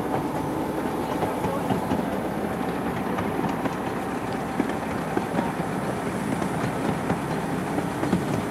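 Miniature railroad train rolling along its track, heard from aboard: a steady running rumble with frequent small clicks from the wheels and cars.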